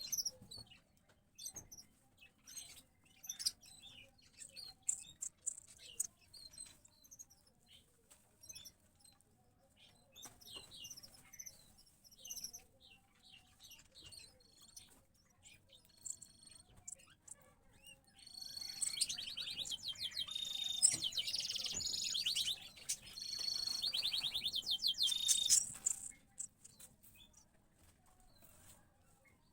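Small cage birds chirping, a canary with young house sparrow chicks: short scattered high chirps, then a loud stretch of rapid, continuous chirping lasting about seven seconds, typical of chicks begging while being fed.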